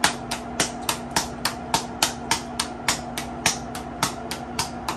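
A ball of corn masa being patted between the hands to shape a thick tortilla (gorda). The slaps come in a steady rhythm, about three and a half a second.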